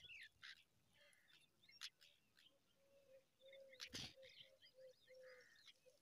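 Faint birdsong: wild birds chirping in many short, quick notes, with a run of short, low, evenly repeated notes in the second half. A single sharp click about four seconds in.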